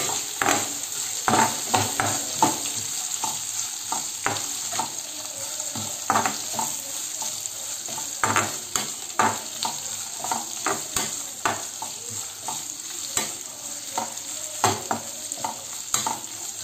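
Sliced green chillies and onion frying in oil in a metal kadai, a steady sizzle, while a metal spatula stirs them, scraping and knocking against the pan in frequent irregular clicks.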